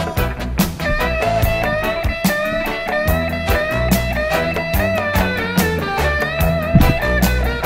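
Background music: a guitar-led rock track with a steady drum beat.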